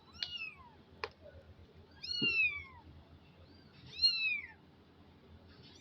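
Kitten meowing three times, about two seconds apart: high-pitched calls that each slide down in pitch. A short click comes between the first two.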